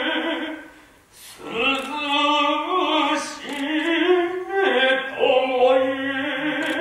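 Noh chant (utai) by male voices without instruments: long, slow held notes with a wavering vibrato, breaking off for a breath about a second in and then carrying on.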